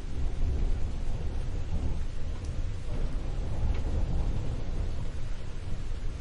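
Thunderstorm: a continuous low rumble of thunder under a steady hiss of rain.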